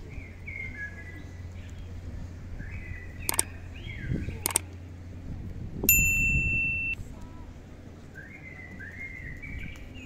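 Birds chirping in short phrases throughout. About three and a half seconds in come two sharp clicks, and a couple of seconds later a loud, steady electronic chime lasting about a second that cuts off suddenly: the click-and-ding sound effect of an on-screen subscribe button.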